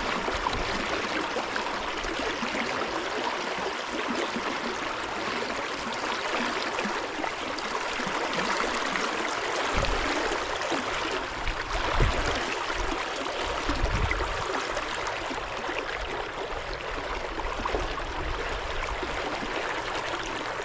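River water rushing steadily over a shallow riffle, an even wash of flowing-water noise. A few dull low thumps come through about ten, twelve and fourteen seconds in.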